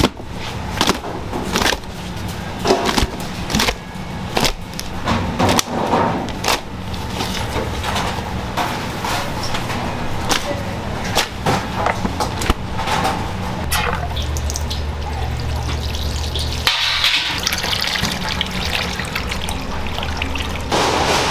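Commercial kitchen food preparation: irregular clattering knocks of utensils and handling over a steady low machine hum, with a rush of liquid-like noise swelling at about seventeen seconds and again near the end.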